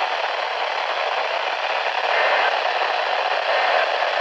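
Steady hiss and crackle of radio static from a receiver with no program audio.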